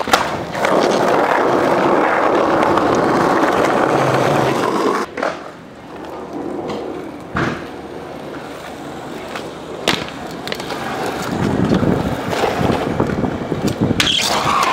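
Freestyle kick scooter's hard wheels rolling on asphalt, with a few sharp clacks of the scooter striking the ground. The rolling drops away about five seconds in and builds up again near the end.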